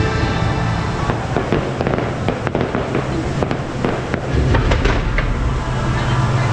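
Fireworks going off in quick succession, a rapid string of sharp cracks and bangs, with music playing underneath.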